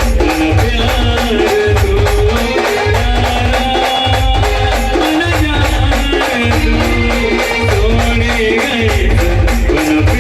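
A band playing a tune: a melody line over a heavy, rhythmic drum beat, with quick, even percussion strokes running throughout.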